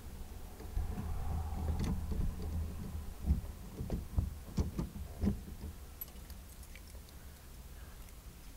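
Soft knocks and clicks of something being handled in a car's cabin, about five in a cluster in the middle, over a faint low hum that fades out.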